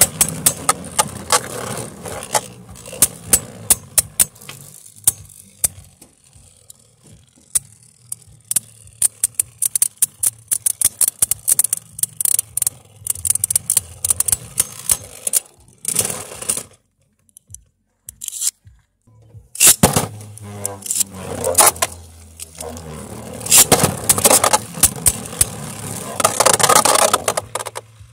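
Two Beyblade Burst spinning tops clashing in a plastic Volt Knockout stadium: rapid sharp clicks and knocks as they collide, with scraping as they grind along the floor and rim. The clashing stops briefly about two-thirds of the way through, then resumes loudly.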